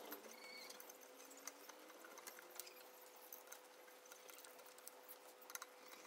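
Faint small clicks and ticks of a screwdriver and fingers working on an air-compressor pressure switch, over a faint steady hum.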